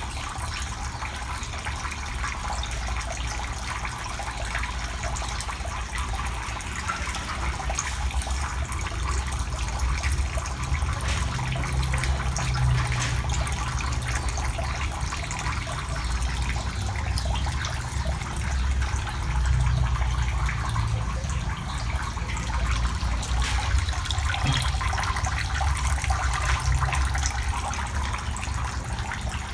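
Steady trickling and splashing of water in a shallow eel tank, over a low rumble that swells at times.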